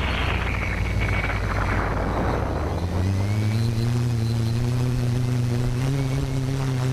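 A rush of wind noise fades over the first three seconds. After it comes the steady low drone of the quadcopter's motors and 14-inch propellers in flight, with a faint higher whine above it.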